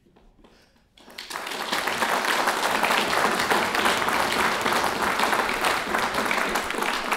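Audience in a hall applauding: many people clapping at once. The applause starts abruptly about a second in and carries on steadily.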